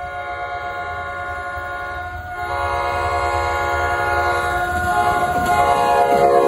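Approaching NJ Transit commuter train, cab car leading, sounding its multi-note air horn as one long held chord. The horn gets louder from about two and a half seconds in, over the low rumble of the train.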